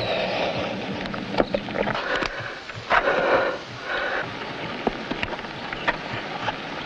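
A climber's breathing, with two louder hazy breaths at the start and about three seconds in, over scattered scuffs and taps of hands and shoes on rock.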